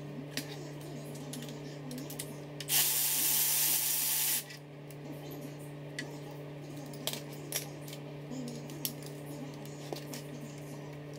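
A burst of hissing spray lasting about a second and a half, a few seconds in, over a steady hum. Short clicks and taps of hand tools being handled on the engine and gearbox come and go.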